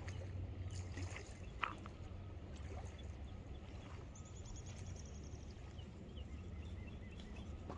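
Steady rush of flowing river water, with a few sharp clicks in the first two seconds and a short run of fast, high ticking about four seconds in.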